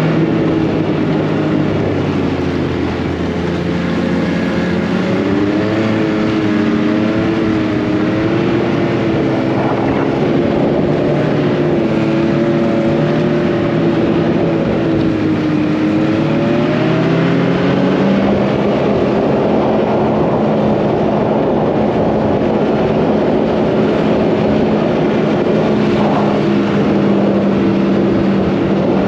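Snowmobile engine running under way, its pitch rising and falling with the throttle for the first half, climbing a little past the middle, then holding steady for the rest.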